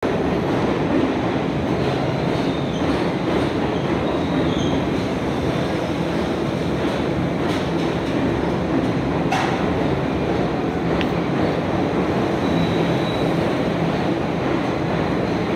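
New York City subway train of R62A cars running along the platform: a steady, loud rumble of wheels on rail, with a few sharp clicks over the rail joints and brief faint wheel squeals.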